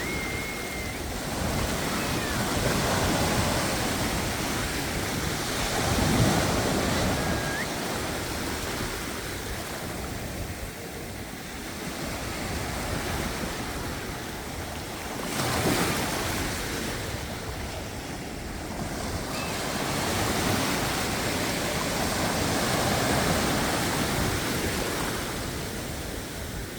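Small sea waves washing in the shallows at the shoreline, the surf swelling and ebbing every few seconds, with some wind on the microphone.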